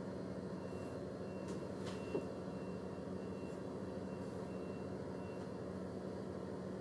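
Diesel railcar's engine idling with a steady hum while the train stands at a platform. A short high electronic beep repeats about two and a half times a second for about five seconds, and a single click comes about two seconds in.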